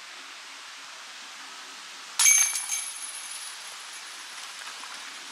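A thrown disc golf disc striking a metal disc golf basket about two seconds in: one sharp metallic clang that rings and fades over about a second.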